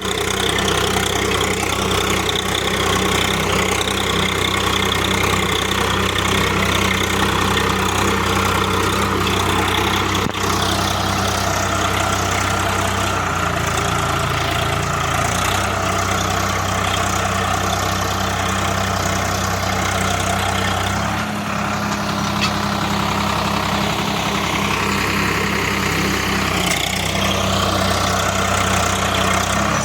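Swaraj 742 XT tractor's diesel engine running steadily while pulling a plough. Its note shifts briefly about 13 seconds in and changes again about 21 seconds in.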